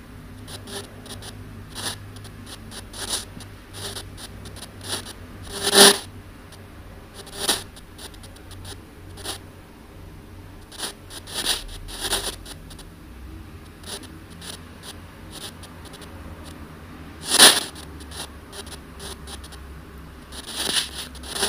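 Handheld spirit box (ANC-Mini sweep radio) scanning through radio stations: a low hiss broken by irregular short crackles of static, a few of them louder.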